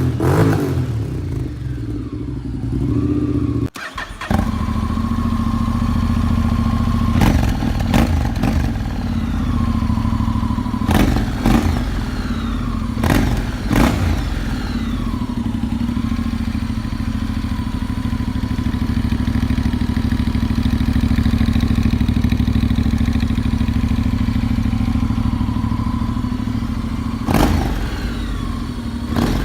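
Honda X-ADV's 745 cc parallel-twin engine idling through an aftermarket exhaust, blipped sharply a few times. There is a short break about four seconds in, as if the recording cuts from one exhaust to the next.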